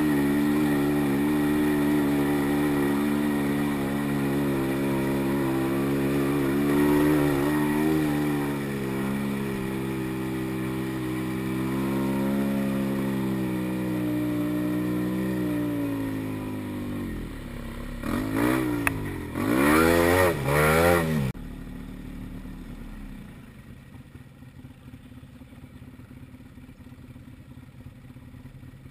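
ATV engine running along at part throttle, its pitch rising and falling with the throttle, then revved up and down several times in quick succession. After that the engine sound drops away, leaving only faint background noise for the last few seconds.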